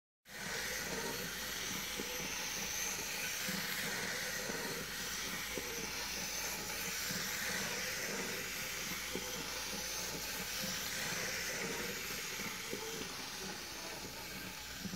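Märklin Z-scale model train running around a track oval: a steady high whir from its tiny motor and wheels on the rails, with faint irregular clicks.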